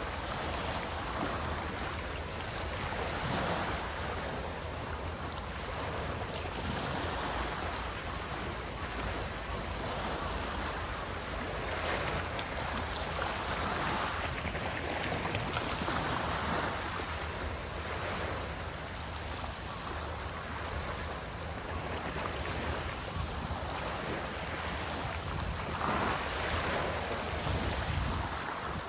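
Outdoor ambience: a steady rushing hiss that swells and eases every few seconds, over a low rumble of wind on the phone's microphone.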